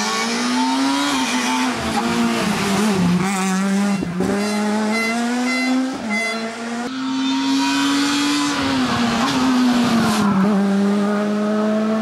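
Rally car engines at high revs on a stage, pitch climbing through each gear and dropping sharply on the shifts and lifts, over several passes cut one after another.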